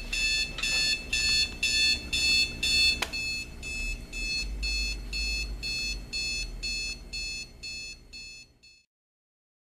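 Westclox 70048 electric alarm clock sounding its alarm: a quick, even run of high electronic beeps. A click comes about three seconds in, after which the beeps are quieter, and they fade out near the end.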